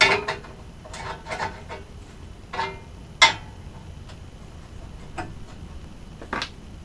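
Scattered metallic clinks and clicks of hand tools and exhaust hardware being handled while an oxygen sensor adapter is fitted, some with a brief ring. The sharpest click comes a little past three seconds in.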